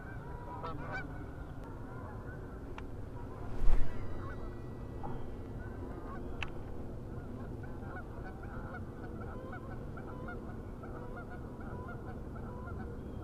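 Birds calling over and over in the background, many short repeated calls, with one loud thump about four seconds in.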